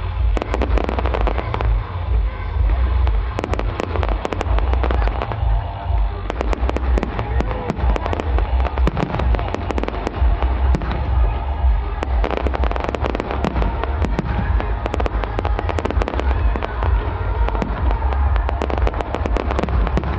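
Fireworks display: many sharp bangs and crackles of bursting shells in quick succession over a constant deep rumble, with music playing underneath.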